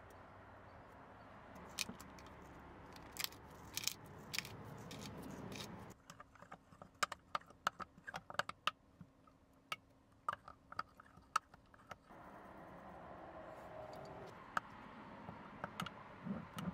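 Metal spoon stirring dill yogurt sauce in a glass mason jar, clinking against the glass again and again at an uneven pace.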